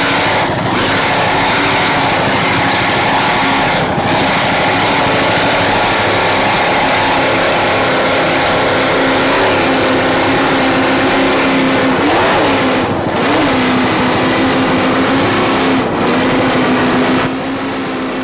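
Offshore racing powerboat's inboard engines running at speed: a loud, steady drone over rushing wind and water. About twelve seconds in, the engine pitch briefly dips and comes back up, and the sound drops somewhat quieter near the end.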